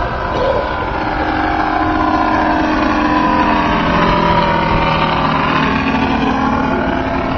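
Robart R780 seven-cylinder radial engine of a scale RC Fairchild PT-23 running in flight as the model passes by. Its pitch bends as it goes past, and it is loudest about four seconds in.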